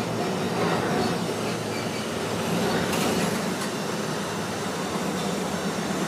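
Steady vehicle rumble with a low hum under an even wash of noise.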